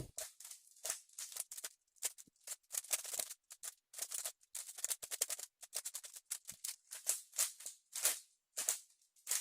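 Plastic speedcube being turned quickly by hand during a speedsolve: a fast, uneven run of clicks and clatter from the layers snapping round, with brief pauses between bursts of turns.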